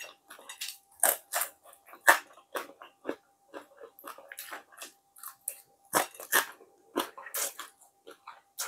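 Close-miked chewing of fried tilapia: irregular crunches and sharp mouth clicks, several louder crunches around a second in and again about six seconds in.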